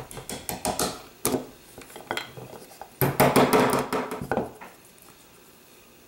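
Small steel parts of a pistol's hammer and sear assembly clicking and knocking against each other and a wooden bench block as the sear pin is worked in, chasing out an alignment drift. About three seconds in comes a louder, denser clatter lasting over a second, then it stops.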